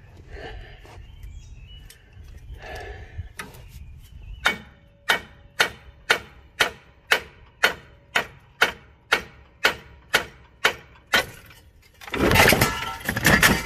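A small sledgehammer striking a 2012 Subaru Legacy's rusty steering knuckle about two times a second, metal ringing on each of about fifteen blows, to break loose the seized lower ball joint. A loud clatter follows near the end.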